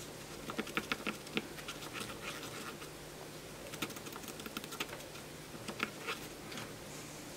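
Cotton swab scrubbing inside an open push-button switch housing on a circuit board, making a run of faint, irregular little clicks and scratches as the tip works the switch contacts clean with DeoxIT contact cleaner.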